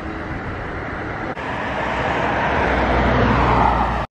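Road traffic: a car passing close by, its tyre and engine noise swelling louder over the last two seconds.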